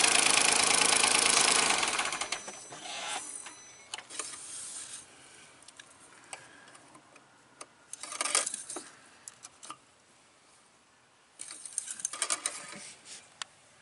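Smart car's rear-mounted three-cylinder engine idling just after an oil change, with lifter knock that is put down to the fresh oil not yet reaching the lifters. It shuts off about two seconds in. After that there are light scattered clicks and rubbing as the dipstick is pulled, wiped and checked.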